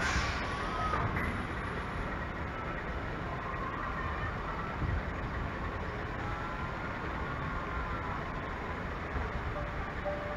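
Steady low rumble and noise aboard a small ride boat moving slowly across a pond, with a brief hiss right at the start.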